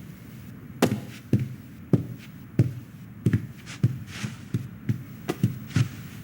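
A series of about ten short thumps, each with a sharp tap on top, coming roughly two a second and starting about a second in.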